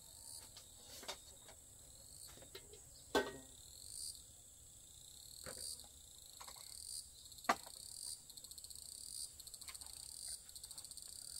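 Insects chirring in a high, fast-pulsing trill with rising chirps repeating about once a second, with a few short clicks or knocks, the loudest about three seconds in and again about two-thirds of the way through.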